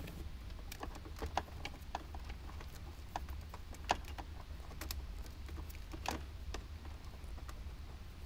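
Faint, irregular small clicks and rustles of wires and plastic harness connectors being handled, as a rubber band is strapped around a USB charging cable, over a steady low hum.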